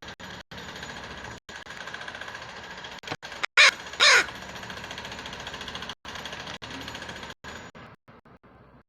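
A Northwestern crow gives two short, loud caws about half a second apart, midway through, over a steady mechanical background drone.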